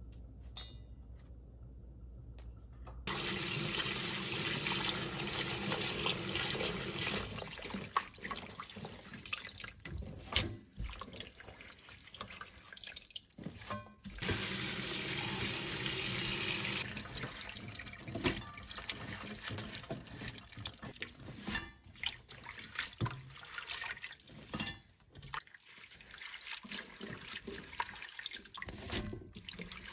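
Kitchen tap running hard into a steel bowl in a stainless steel sink, starting about three seconds in. After it stops, about halfway, hands swish and rinse chwinamul greens in the water, with irregular splashing.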